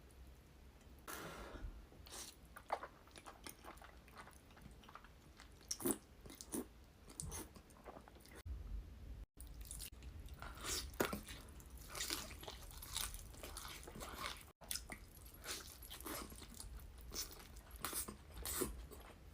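Close-miked eating of birria tacos: irregular crunches of the crisp fried tortilla being bitten, mixed with chewing.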